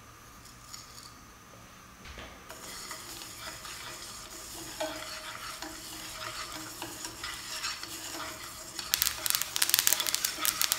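Sesame seeds dry-roasting in a nonstick frying pan, stirred with a wooden spatula: a scraping rustle of seeds against the pan starts about two seconds in and builds as they heat. From about nine seconds in it turns much louder, with dense crackling.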